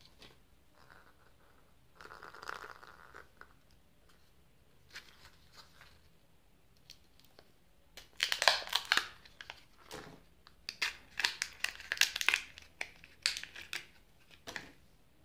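A Kinder Joy egg being unwrapped by hand: its foil-plastic wrapper crinkles and tears, and the plastic shell clicks. Light rustling comes first, and a dense run of crackling starts about halfway through and lasts until shortly before the end.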